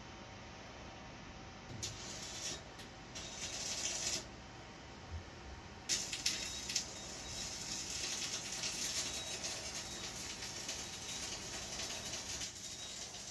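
Arc welding: the arc hisses and crackles in short bursts, then runs steadily from about six seconds in.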